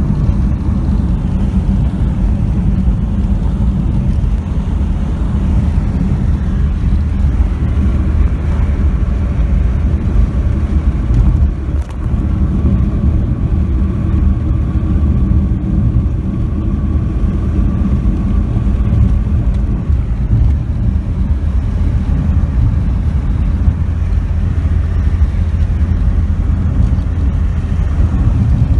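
Steady low rumble of a car driving on a paved road, heard from inside the cabin: engine and road noise, with one brief dip near the middle.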